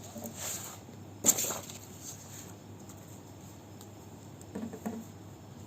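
Paper rustling and one sharp tap about a second in, as picture cards are handled.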